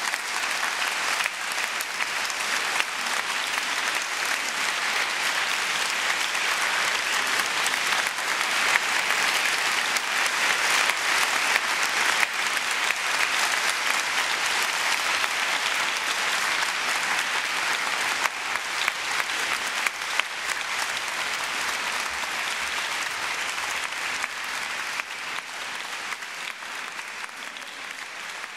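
Concert audience applauding, swelling over the first several seconds, holding steady, then slowly thinning toward the end.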